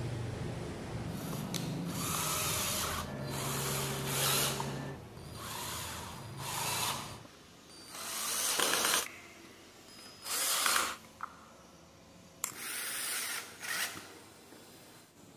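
Cordless drill driving screws into a wooden toy truck chassis in short bursts, about seven times, each under a second long.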